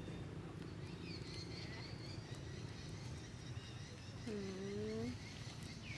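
Outdoor ambience with faint high chirps, and about four seconds in a single low drawn-out vocal call, rising slightly, under a second long.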